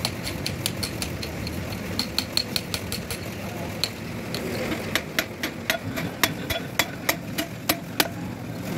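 Light metallic clinks of hand tools on a differential's pinion housing, then from about halfway sharp hammer strikes on the metal differential carrier, about three a second.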